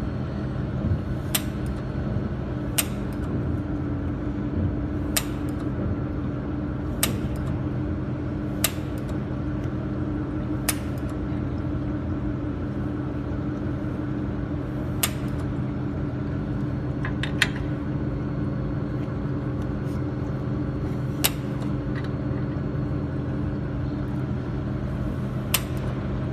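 Steady machine hum from a laser welding machine, broken by sharp clicks every couple of seconds at uneven intervals, one of them doubled.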